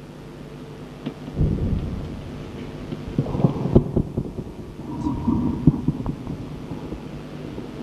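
Low rumbling thuds and muffled noise on an old, worn recording of a gathering, with a brief steady tone about five seconds in.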